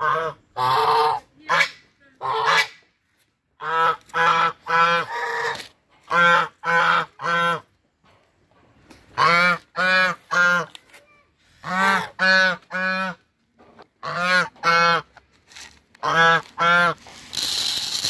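Brown Chinese geese honking, short loud calls in quick runs of three or four with brief pauses between runs; the geese are hungry. Near the end, grain rushes as it is poured into a feeder bowl.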